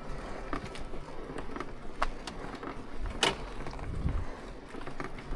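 A dead Yamaha R25 motorcycle being pushed along by hand: irregular light clicks and knocks over a faint low rumble, the sharpest click about three seconds in.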